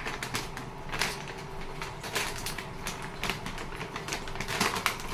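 A dishwasher detergent tablet's plastic wrapper being torn open and handled, giving an irregular run of crinkles and clicks.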